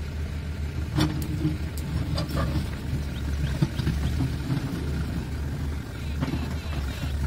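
Diesel engine of a backhoe loader running steadily as its rear bucket digs into a pile of concrete blocks. Blocks clatter and knock sharply about a second in, a few more times around two seconds, and again near the end.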